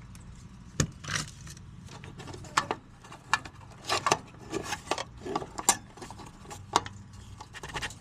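Hands handling a perforated metal hanger strap and wiring inside an outdoor heat pump's control box, making irregular metallic clicks, rattles and scrapes over a steady low hum.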